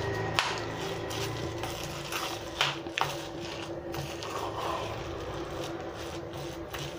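A spoon stirring and scraping a thick, dry mixture of ground chana dal and chopped coriander around a steel bowl, with a few sharp clinks of the spoon against the metal.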